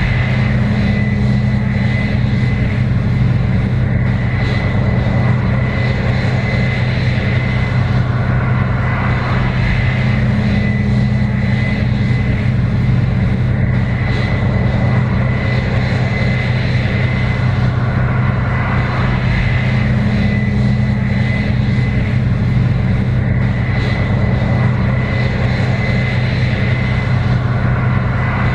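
Case IH 7120 Axial-Flow combine running steadily under load while harvesting corn: a continuous engine drone with a steady high whine over the rumble of the machinery.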